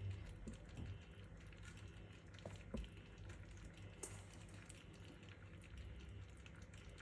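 Faint handling sounds of cut vegetable pieces being set into a tagine: a few soft knocks, over a low steady hum.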